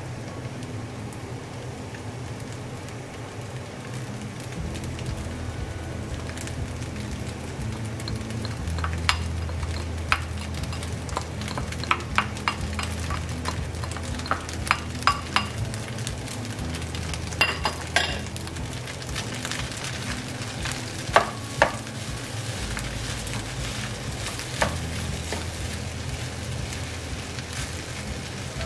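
Fried rice sizzling in a nonstick frying pan as a spatula stirs it. A series of sharp knocks and taps against the pan comes through the middle, louder than the steady sizzle.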